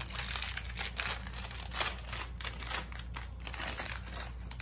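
Plastic wrapper crinkling and rustling as an ice cream bar is unwrapped by hand, a quick irregular run of crackles that stops near the end.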